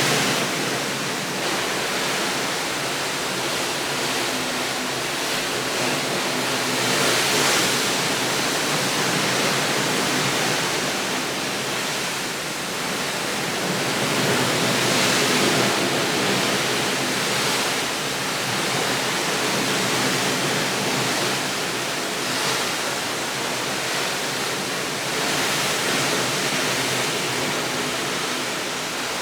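A steady rushing noise that swells and eases every few seconds, with a faint low hum underneath.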